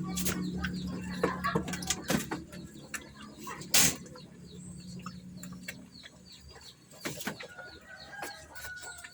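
Chickens clucking and small birds chirping in a farmyard, over scattered knocks and two short, louder scuffling noises, the first about four seconds in and the second about seven seconds in. A low hum underneath stops about six seconds in.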